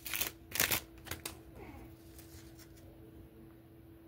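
Panini Prizm basketball cards being slid through the hands: a few quick rustles in the first second or so, then only a faint steady hum.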